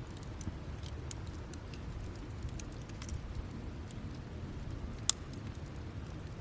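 Wood campfire burning down to embers, crackling with scattered small pops over a low steady rumble, and one sharper pop about five seconds in.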